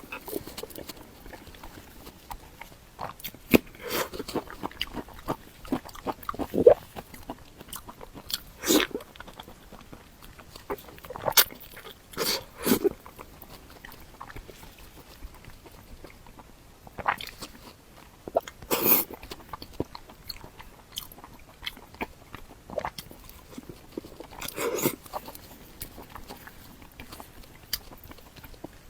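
Close-miked eating sounds: a person chewing and biting food, with irregular wet mouth clicks and several louder bites spread through.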